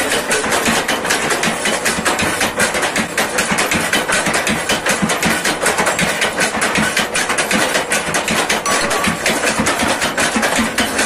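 Homemade mini yerba-mate stamp mill running, pounding erva: a row of wooden stamps, lifted by cams on a belt-driven shaft and dropped into the trough. It makes a fast, unbroken clatter of wooden knocks, several a second.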